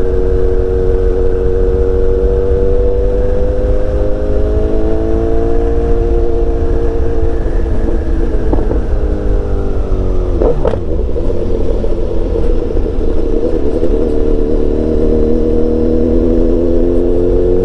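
BMW S1000XR's inline-four engine running under way, its pitch rising gently, then dropping as the bike slows about ten seconds in, then climbing again as it speeds up. A steady low wind rumble on the microphone runs underneath, and there is a short sharp sound about ten seconds in.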